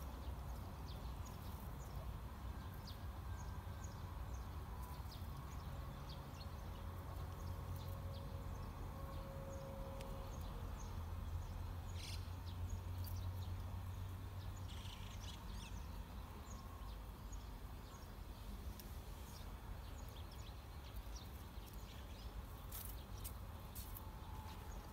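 Quiet yard ambience: a steady low rumble with scattered faint clicks and rustles.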